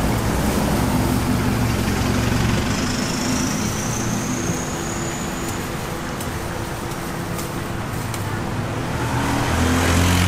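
Steady road-traffic noise with a motor vehicle engine running close by, its low hum shifting in pitch near the end. A faint high tone rises slowly for about three seconds in the middle.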